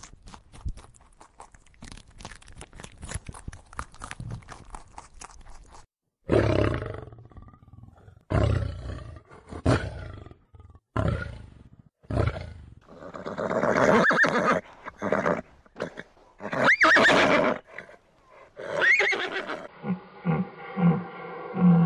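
Crunchy clicking of an animal chewing for about six seconds, then a large animal calling loudly again and again, each call with a gliding pitch.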